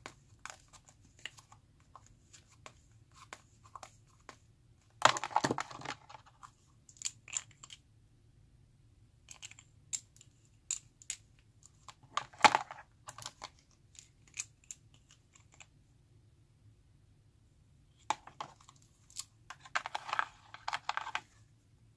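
Plastic nail extension gel tubes and their plastic tray being handled: scattered light clicks and taps, with louder rustling clatters about five seconds in, around twelve seconds and near the end.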